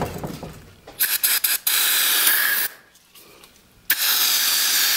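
Aerosol spray can sprayed into a brake wheel cylinder's bore: a few short puffs, then two steady one-second hisses with a pause between them. At the start a drill-driven cylinder hone winds down.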